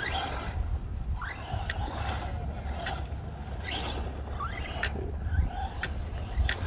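Electric motor of a radio-controlled truck whining in three short rising bursts as it accelerates, heard at a distance over a steady low rumble, with a few sharp ticks in between.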